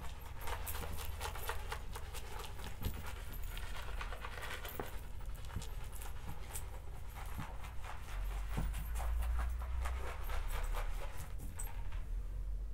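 A dry, crunchy debris mix being sprinkled onto a shag rug: a steady patter of many small ticks as the bits land.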